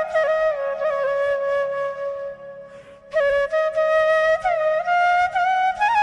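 A sad melody on a bamboo flute (bansuri), one line of sustained notes joined by slides. The phrase fades away a little past two seconds in, and a new phrase starts about three seconds in.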